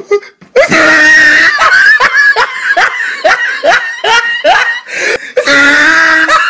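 Shrill, high-pitched laughter: a long cry, then a run of short rising 'ha' sounds, about two or three a second, then another long shrill cry near the end.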